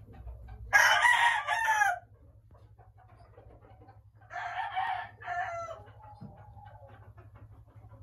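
Chicken calling twice: two loud, drawn-out calls, each over a second long, a few seconds apart, with the pitch bending and falling at the end.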